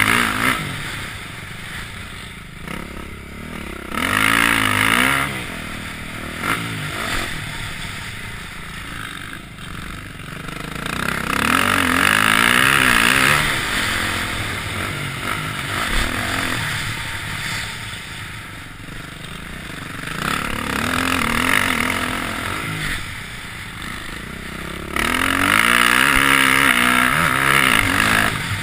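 Motocross bike engine heard from on board, revving up and falling off again and again as the rider works the throttle around the track. It comes in several loud surges, the longest near the end.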